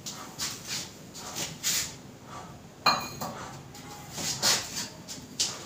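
A steel container and spoon scraping and clinking against a bowl as coarsely ground peanuts are tipped and scraped out into it: a string of short scrapes with one sharp clink about three seconds in.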